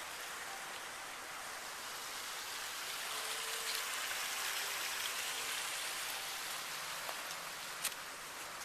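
Water pouring and splashing down a boulder waterfall: a steady hiss of falling water, a little louder in the middle.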